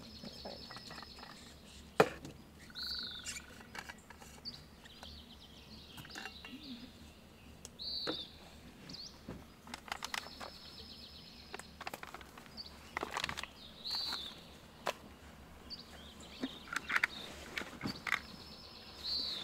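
Songbirds chirping, with a high trilled phrase repeating three times. Scattered sharp clicks and knocks; a click about two seconds in is the loudest sound.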